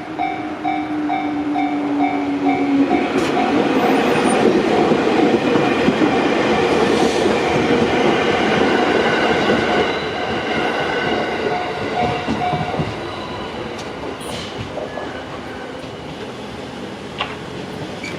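Japanese railroad crossing's electronic warning bell ringing in a steady repeating ding while a JR Chūō Line train passes with loud rushing and rumbling wheel noise. A whine falls slightly in pitch over the first few seconds; the bell stops about twelve seconds in and the train noise eases off.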